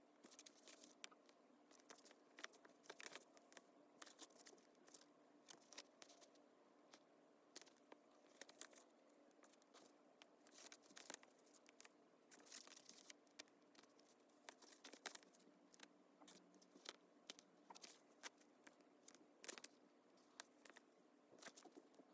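Close-up handling of paper and stickers while a diary page is decorated: a dense, irregular run of small crackles and ticks, faint overall, over a faint steady hum.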